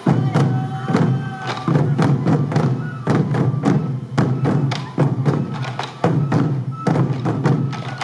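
Sansa odori festival music: many sansa-daiko (hip-slung taiko drums) beaten in unison in a steady beat, a heavy stroke about once a second with lighter strikes and clicks between. A bamboo flute melody plays over the drums.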